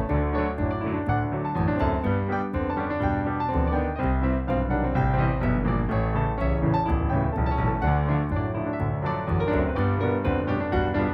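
Background music: piano-led instrumental with a steady beat and a low bass line.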